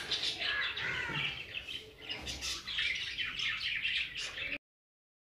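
Birds chirping over a light crackle of breaded chicken cubes deep-frying in oil; all sound cuts off suddenly near the end.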